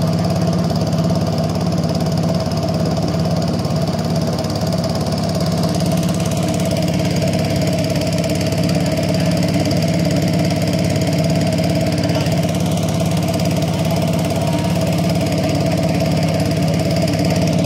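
Small petrol boat engine on a wooden boat running steadily under way, an unbroken engine note that holds the same pitch throughout.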